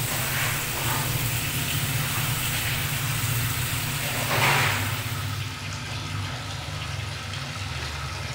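Water tap at a sink left running: a steady rush of water over a low hum, with a brief louder whoosh about halfway through.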